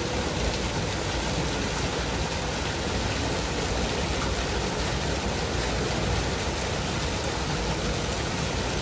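Ornamental waterfall: two thin streams of water falling into a pool, a steady even splashing rush.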